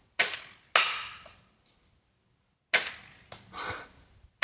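Coil Accelerator electromagnetic coil gun firing in semi-auto: three sharp cracks, the first two about half a second apart and the third about two seconds later, with fainter knocks after the third and another shot just at the end.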